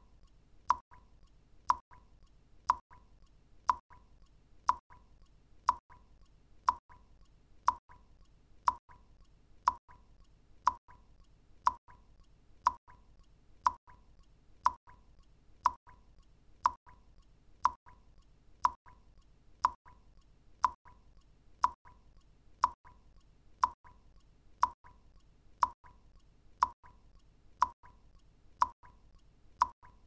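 Single water drops plopping into water at an even pace of about one a second, each a short, sharp plink at much the same pitch.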